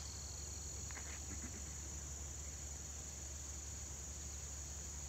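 Insects chirring in a steady, high-pitched drone that never breaks, over a faint low hum.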